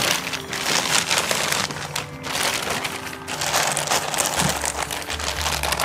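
Thin clear plastic bag crinkling and rustling as hands work it around a lidded stainless steel pot, in two long bouts with a short pause a little after three seconds.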